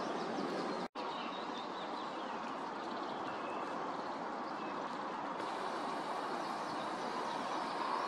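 Steady rushing outdoor background noise with many faint small birds chirping over it. The sound cuts out for an instant about a second in.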